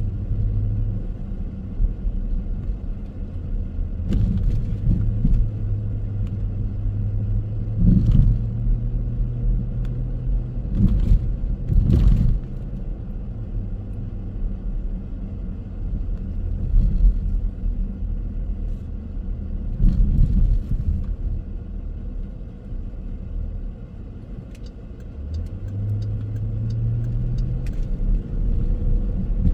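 A car driving on city streets: steady low road rumble and engine hum, with a few short, louder thumps along the way, and the hum rising in pitch near the end as the car speeds up.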